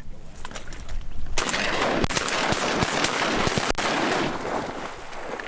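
Shotguns firing at ducks overhead: about three loud blasts a second or so apart, starting about two seconds in, over a loud rushing noise that begins abruptly just before them and fades after the last shot.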